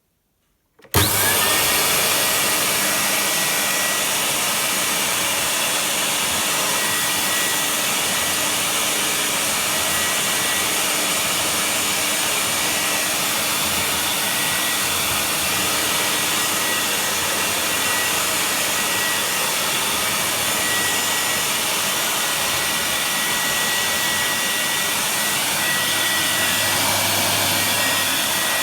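1974 Miele S 200 de luxe vacuum cleaner switched on about a second in: the motor whine rises quickly to a steady high pitch and it runs at full speed with a loud, steady rush of air. This early model has no factory sound damping, so it runs louder than later ones.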